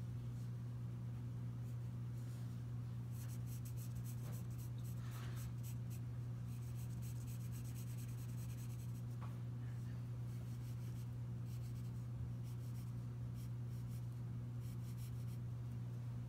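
Pencil lead scratching on paper in runs of quick short strokes with brief pauses, as the balusters and lines of a stair railing are sketched in. A steady low hum runs underneath.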